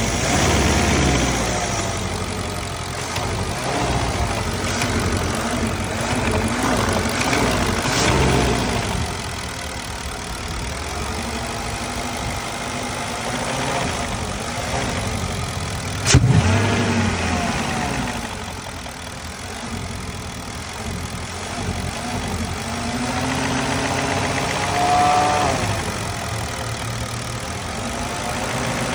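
Porsche Cayenne S (955) 4.5-litre V8 idling and being blipped lightly, the revs rising and falling several times, on a hot engine that carries a foreign noise on blips between about 900 and 1500 rpm. A single sharp knock about halfway through is the loudest sound.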